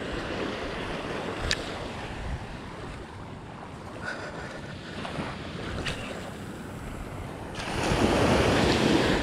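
Small ocean waves washing onto a sandy beach, with wind on the microphone. The surf grows louder near the end as a wave breaks at the shoreline, and a couple of faint clicks sound earlier on.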